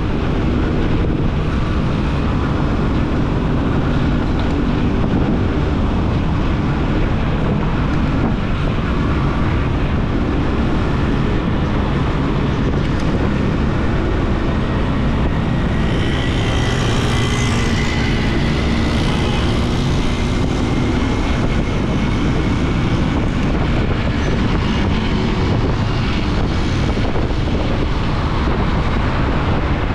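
Riding noise of a motorcycle at speed: steady wind rush on the microphone over the engine and road noise. A faint high whine drifts slightly upward past the middle.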